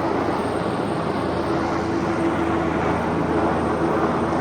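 Helicopter flying overhead, a steady drone of rotor and engine.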